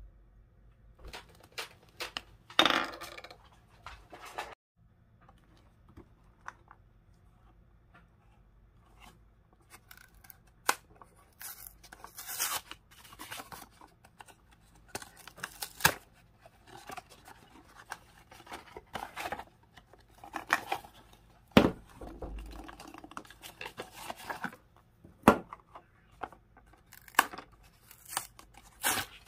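Hands tearing open a thin cardboard box: short, irregular paper-and-card ripping and peeling, with small clicks and taps of handling between the tears and several louder rips.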